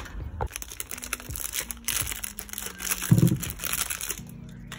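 Thin plastic packaging bag crinkling and rustling as a speedcube and its stand are unpacked from it, with a short low bump about three seconds in.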